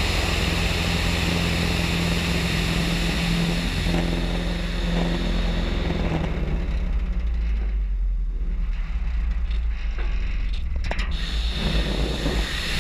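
Thorp T-18 light aircraft in flight: steady engine and propeller drone with air rushing past the wing-mounted camera. The drone and rush weaken from about halfway through as the airplane slows in a tailslide, then build again near the end.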